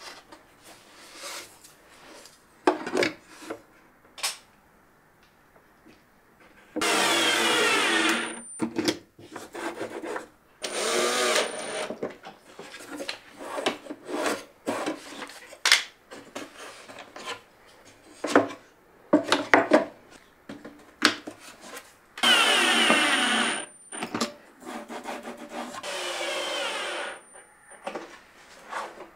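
Cordless drill driving screws to fix metal drawer slides to the inside of a wooden cabinet, in four short runs of one to two seconds each. Between the runs come scattered clicks and knocks from the clamps and the handling of the slides and spacer block.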